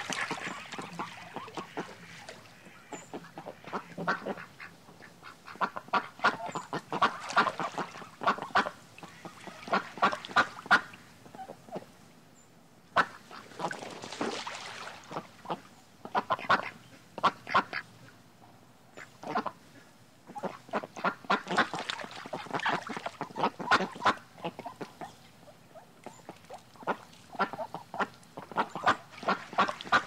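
Ducks quacking: runs of short, rapid quacks, several a second, in bouts broken by brief pauses.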